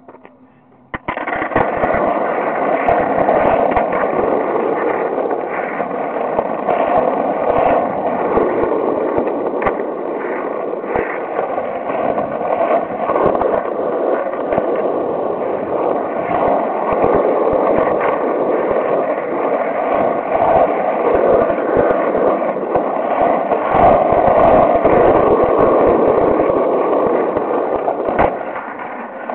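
Skateboard wheels rolling over rough asphalt, a loud, steady rumble close to the microphone, broken by sharp clicks as the wheels cross cracks and grit. It starts suddenly about a second in.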